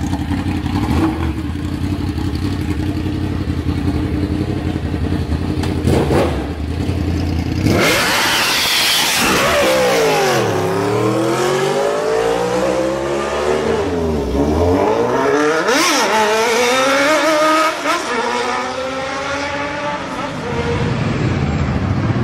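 Sport motorcycle engine idling steadily, then suddenly revved hard about eight seconds in as the bike pulls away, its pitch sweeping down and up again several times as it accelerates through the gears.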